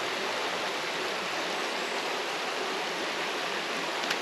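Creek water rushing steadily, an even hiss of flowing water, with a faint click near the end.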